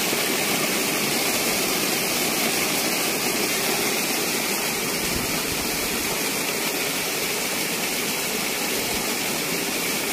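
Steady rush of water gushing from a solar-powered pump's outlet pipe into a concrete basin.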